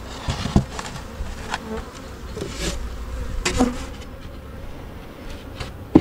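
Honey bees buzzing around an open poly nuc hive, with scattered knocks and scrapes as the hive is closed up and its polystyrene lid fitted back on; the loudest knock comes near the end.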